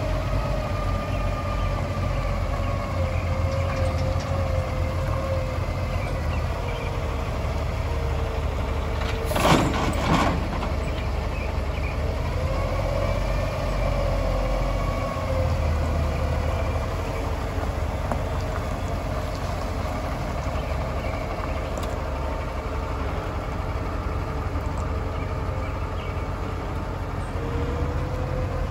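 Diesel engine of a Kenworth T800 truck tractor running steadily, its pitch drifting gently up and down, with a short, loud burst of noise about nine and a half seconds in.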